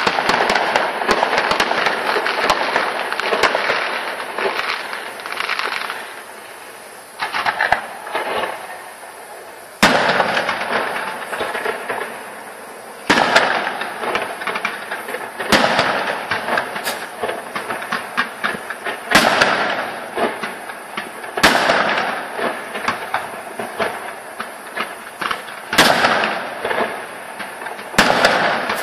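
Fireworks display: aerial shells bursting with sharp bangs every two to four seconds, with dense crackling between them. The first few seconds are a long run of crackling, then it eases off briefly before the bangs begin.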